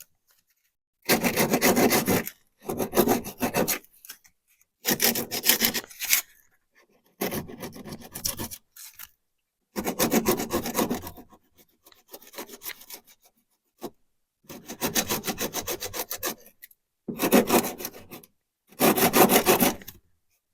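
Abrasive rubbing on the rust bubble of a car's steel wheel arch, scratching away paint and rust in about nine bursts of roughly a second each, separated by short pauses.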